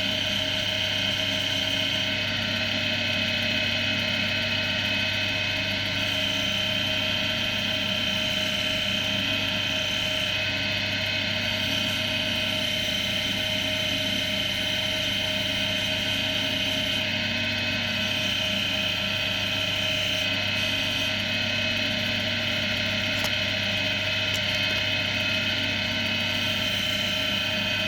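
Axminster AC240WL wood lathe running steadily, its motor giving a constant hum with a steady high whine.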